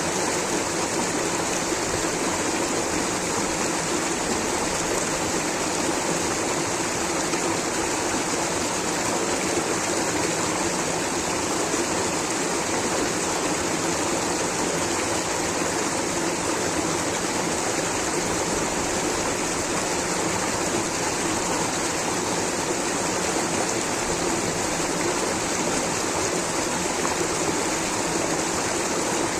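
Water rushing steadily over rocks in a stream or small waterfall, an even unbroken rush.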